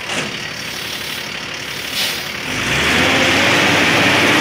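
Heavy diesel vehicle engine running, then revving up and getting louder about two and a half seconds in.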